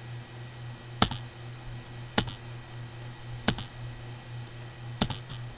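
Computer keyboard keys struck four times, about a second apart, some strikes doubled, as lines of R code are run one after another; a low steady hum runs underneath.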